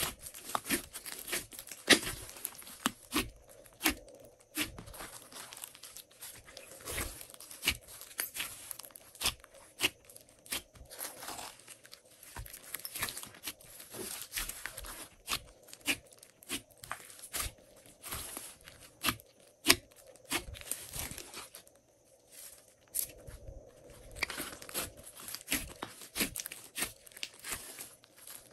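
Glossy slime being kneaded and squeezed by hand, giving a run of irregular sticky pops and crackles, with a brief pause about three-quarters of the way through.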